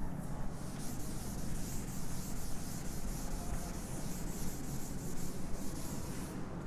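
Scratchy strokes of hand-writing, a pen or marker moving over a writing surface as an equation is written out, stopping shortly before the end.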